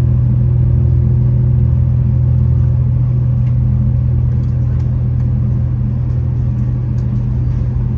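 Interior of a V/Line VLocity diesel multiple unit under way: its underfloor diesel engine drones steadily, with running noise from the wheels on the track and a few faint light ticks in the second half.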